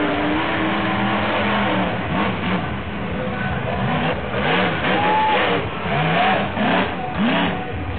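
Monster truck engine revving hard, its pitch swooping up and down again and again as the throttle is blipped on and off through a jump.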